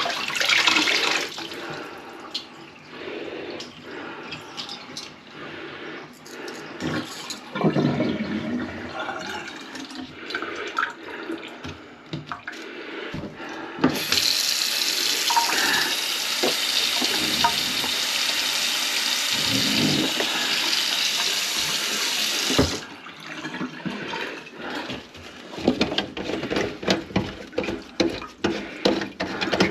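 Water splashing and gurgling in a kitchen sink, with scattered knocks. About halfway through a tap runs steadily for around eight seconds, then shuts off.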